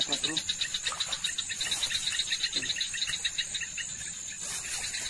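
Night insect chorus: a rapid, evenly pulsing high trill, about eight pulses a second, that fades out about three and a half seconds in, over a steady high-pitched insect whine.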